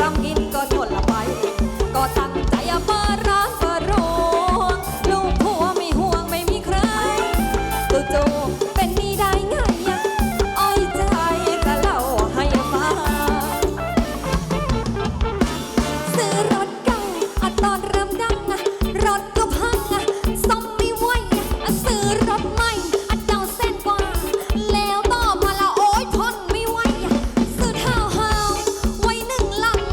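Live Thai ramwong dance-band music: drums keep a steady beat under a melody line, playing without a break.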